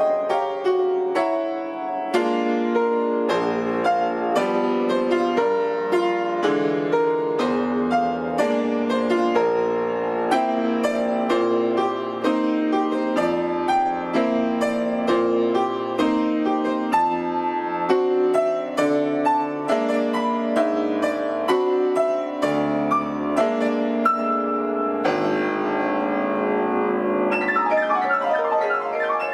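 Solo piano: a steady stream of struck notes and chords. About 25 seconds in it turns into a fast tremolo in the upper register.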